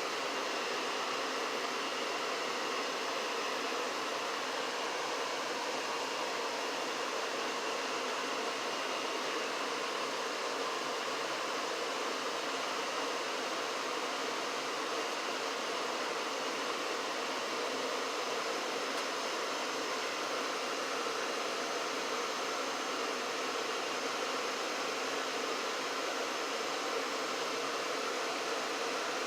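Janitrol furnace running steadily: an even rush of air with a faint, constant hum.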